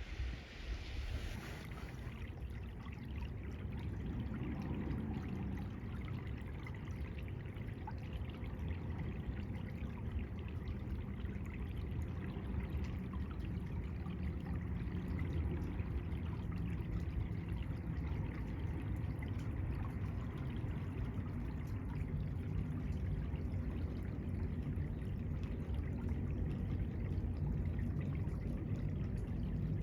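Meltwater from thawing snow trickling and running steadily.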